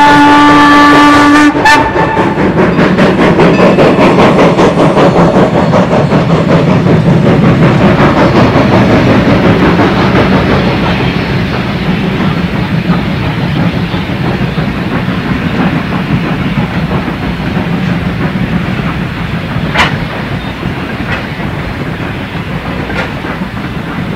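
Steam whistle of Strasburg Rail Road's 4-8-0 locomotive 475 blowing, cutting off about a second and a half in. Then the passenger coaches roll past with wheels clicking and clattering over the rail joints, slowly fading as the train moves away.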